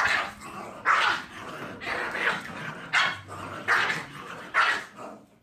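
Small dog barking excitedly: about six sharp barks, roughly one a second.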